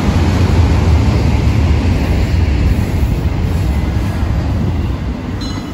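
BNSF double-stack intermodal freight train rolling past: a steady rumble of wheels and container cars on the rails, easing off slightly toward the end.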